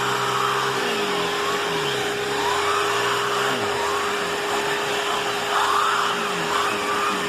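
Vacuum cleaner running with a turbo brush attachment being worked over a bed: a steady motor whine under the rush of air, with tones that sweep up and down in pitch as the brush is pushed back and forth.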